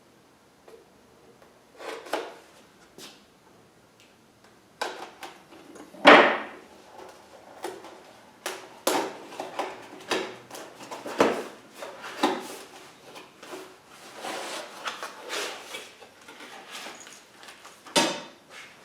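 Unpacking by hand: a string of knocks and clatters as parts and packaging are picked up and set down, with rustling between them. The loudest knock comes about six seconds in, and a sharp one near the end.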